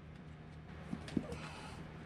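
A few faint clicks and light knocks, about a second in, as small parts of a Traxxas Slash 4x4's front suspension and aluminium hub are fitted together by hand, over a steady low hum.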